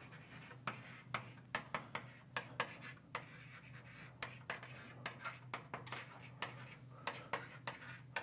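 Writing on a lecture board: a quick, irregular run of sharp taps and strokes, over a steady low hum.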